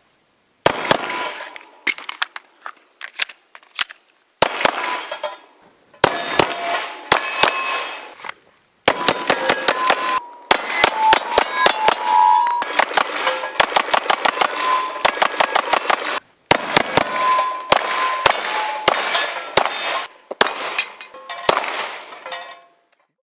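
Rapid strings of pistol shots from a pair of semi-automatic pistols, with steel plate targets clanging and ringing on hits. The shots come in several separate bursts with short silent gaps between them.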